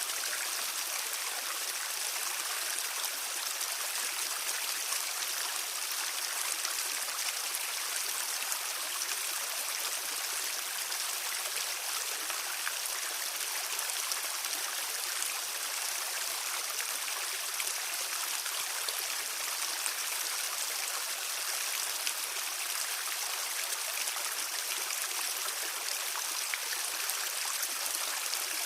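Stream flowing: a steady rushing and babbling of water over stones, even throughout, with most of its energy in the higher, hissing range.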